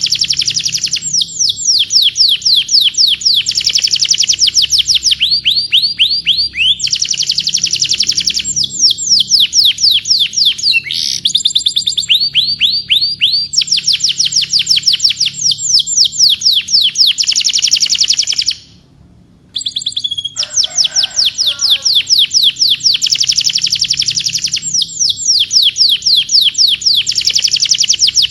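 Domestic canary singing: long, fast trills of rapidly repeated notes, each a quick downward sweep, the trill changing speed every second or two. There is one brief break in the song about two-thirds of the way through.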